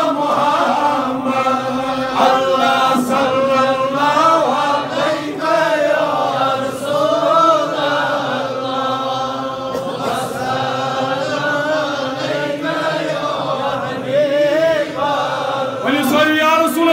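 A man chanting an Islamic devotional verse into a microphone, in long, wavering held notes.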